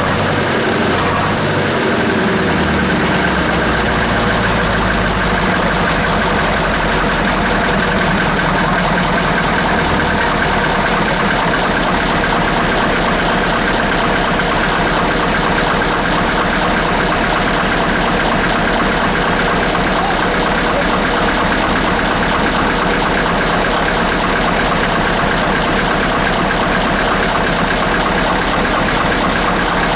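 1948 BUDA 8-DC-1125 straight-eight diesel engine running steadily at idle. Its low drone shifts for the first few seconds, then settles and holds even.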